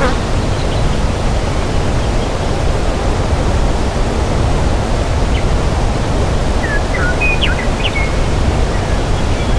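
Forest ambience: a steady, even rushing noise, with a few brief bird chirps about five seconds in and again a little later.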